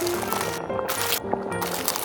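Background music: a light tune of stepped melody notes with a hissing percussion beat that comes back about once a second.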